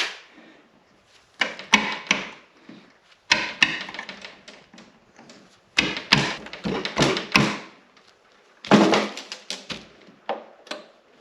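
Irregular knocks, clicks and clatter in four short clusters, from tools and metal parts being handled while fitting the snowmobile's side-panel latch hardware.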